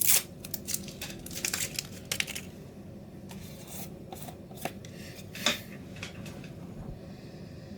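Clicks, scrapes and rustles of a beard balm container being opened and handled, in a series of short sharp sounds that die away after about six seconds.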